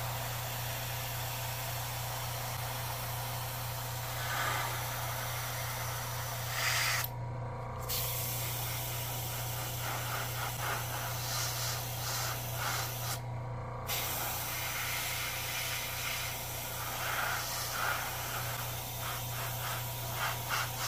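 Airbrush spraying paint: a steady hiss of air and paint from the nozzle, stopping abruptly twice for about a second each, over a steady low hum.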